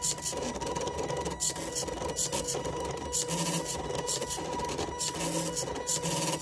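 Small stepper motors of a pen plotter built from old CD/DVD drive mechanisms buzzing in short stop-start bursts as they shift the pen, over a thin steady whine, with the ballpoint pen scratching across the paper.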